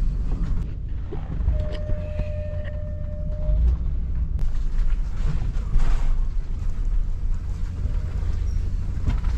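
A camper bus driving slowly over a rough, potholed road: a steady low rumble from the engine and chassis, with scattered knocks and rattles as the bus takes a beating. About a second and a half in, a thin steady tone lasts for about two seconds.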